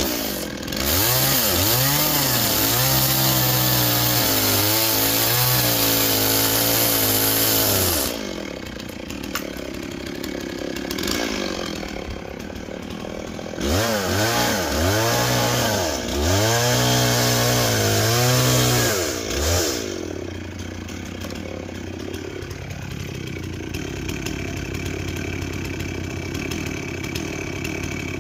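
Two-stroke gas chainsaw revved up with quick throttle blips and then held at full throttle for several seconds, dropping back to idle. It revs up again in the same way about halfway through, then settles into a steady idle for the last several seconds.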